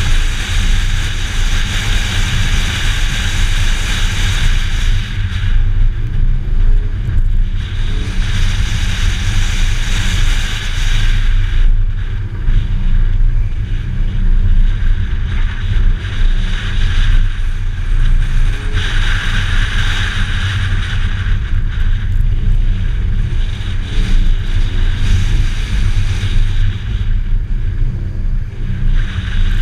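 2013 Scion FR-S on a dirt rallycross course: its flat-four engine running under load, mixed with the rush of wind and of tyres on loose dirt. The noise is loud and swells and eases every few seconds.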